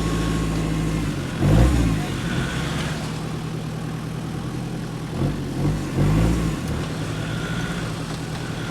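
Off-road 4x4's engine running steadily, revved up briefly about a second in and twice more around five to six seconds in as the stuck vehicle tries to pull itself out.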